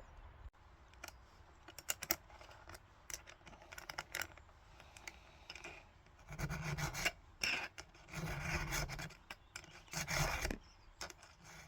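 A file rasping across the cutting teeth of a chainsaw chain as it is sharpened by hand: irregular strokes, a few scattered at first, then a louder run of back-to-back strokes in the second half.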